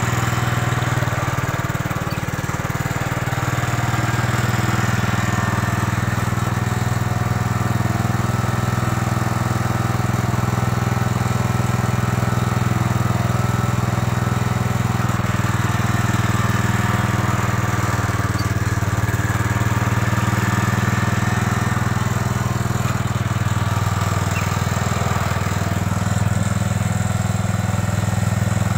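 A 1968 Gravely Commercial 12 walk-behind tractor's single-cylinder Kohler engine runs steadily while pushing a snow plow blade. The engine shows no sign of labouring under the load.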